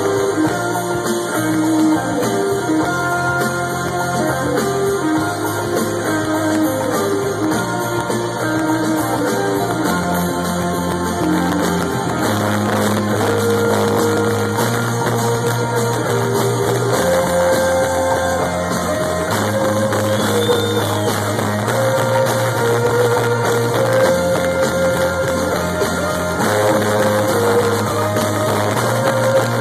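Live band music heard from the crowd: a bass line of held notes that change every second or two under drums, guitar and keyboard melody.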